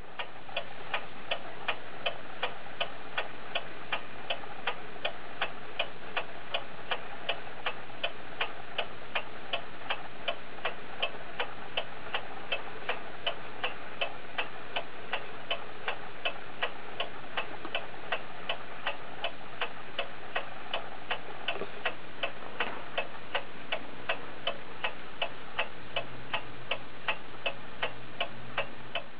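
Ansonia "La Mine" Royal Bonn porcelain mantel clock (circa 1904) ticking from its open, visible escapement, a quick, even tick-tock at a steady level.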